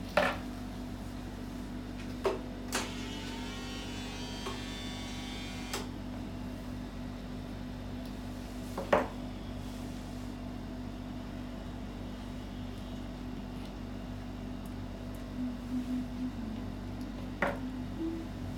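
A steady low hum with a handful of sharp clicks and knocks from grooming tools being handled and set down on the grooming table, the loudest just after the start and about nine seconds in. From about three to six seconds in there is also a steady buzzing tone.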